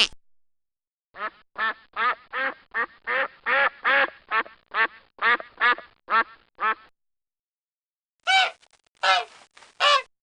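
Duck quacking: a quick run of about fifteen quacks, roughly two and a half a second. After a pause of about a second and a half, four higher calls follow near the end.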